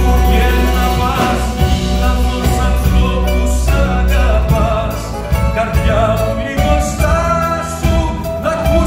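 Live band playing a Greek ballad with a male lead vocal sung into a microphone, over bass guitar, keyboards and light percussion through a concert sound system.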